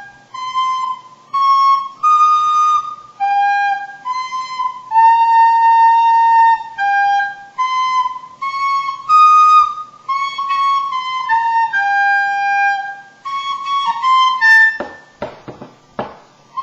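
Recorder playing a simple tune one held note at a time with short breaks between notes, by a player who is not good at the recorder. Near the end the tune stops and a few sharp knocks are heard.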